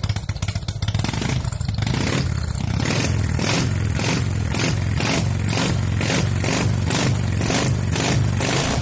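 Motorcycle engine running. It picks up revs about a second in, then holds steady with a regular pulsing exhaust note.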